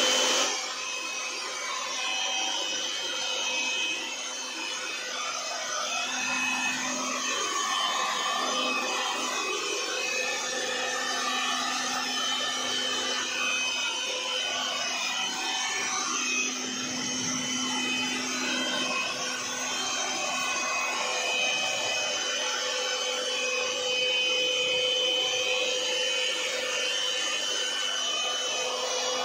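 Handheld electric air blower running continuously, a steady rush of air with a constant motor whine, used to dry a dog's wet coat.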